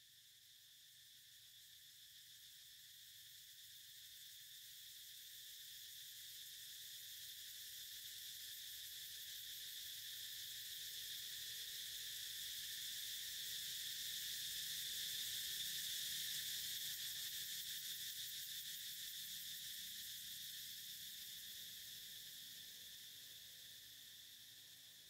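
Steady, high-pitched chirring of an insect chorus. It swells slowly to its loudest about two-thirds of the way through, then fades.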